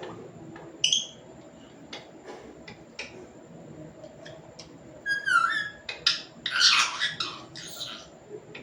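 Pet parrot calling. There is one short high call about a second in and a few faint clicks, then a run of quick chirps and several loud calls in the second half.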